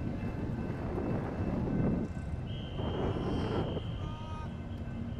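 Wind rushing over the microphone and rolling noise of a pedal-powered velomobile moving along a street. A single high steady tone sounds for about two seconds, starting about halfway through.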